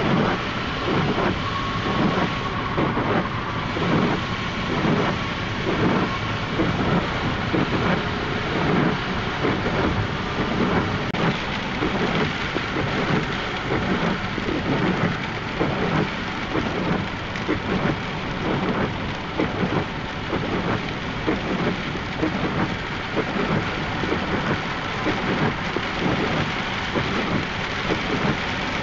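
Heavy rain beating on a car driving on the highway, mixed with road noise. The sound pulses in an even rhythm, about one and a half beats a second.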